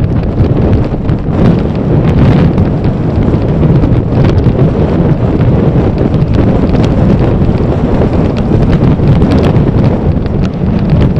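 Wind buffeting the microphone of a camera riding on a moving bicycle: a loud, steady low rumble with frequent crackles.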